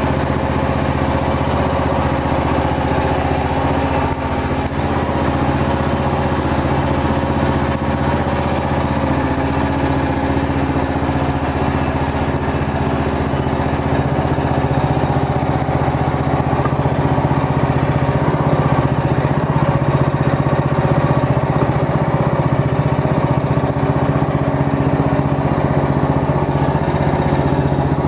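Mygale 500 micro excavator's small engine running steadily while the machine travels on its tracks, getting a little louder in the second half.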